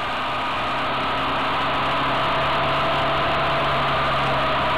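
Motorcycle engine running at a steady cruise, heard from on board the moving bike with wind rushing over the microphone, slowly growing louder.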